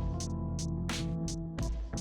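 Background music with a steady beat: evenly spaced percussion hits, about three a second, over held chords and a bass line.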